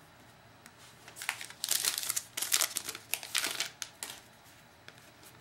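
Foil wrapper of a baseball card pack crinkling as it is torn open and crumpled, a run of sharp crackles lasting a little over two seconds, starting about a second in.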